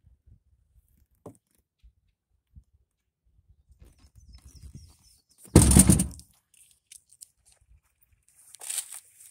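The hinged plastic seat over the Argo Frontier 6x6's under-seat storage bin being lowered shut, one loud thunk about five and a half seconds in, with faint handling and rustling around it.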